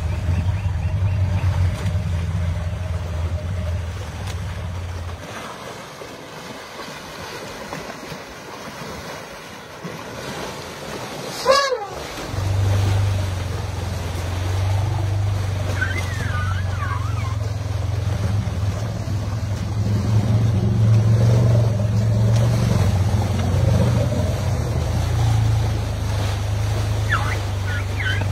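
Muddy river water rushing and splashing as elephants wade through it, under a steady low rumble like wind on the microphone. The rumble drops away for several seconds and returns after a sharp click about twelve seconds in. A few brief high chirps come later.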